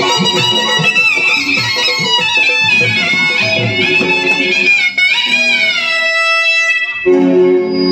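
Sanai (shehnai), the Indian double-reed wind instrument, playing a bright, ornamented melody over steady drum beats. About halfway through the drums drop out and the sanai bends its pitch up and down, then holds a long note.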